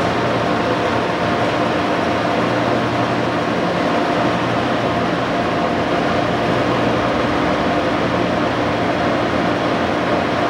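Monarch 20-CM heavy-pattern engine lathe running under power, its 20 HP main drive turning the spindle and chuck. It makes a steady mechanical hum with several held tones, with no change in speed.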